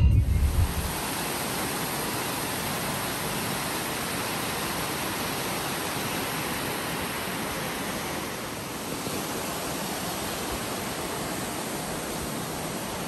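Waterfall rushing steadily: falling water splashing over rock into a pool, an even, constant hiss.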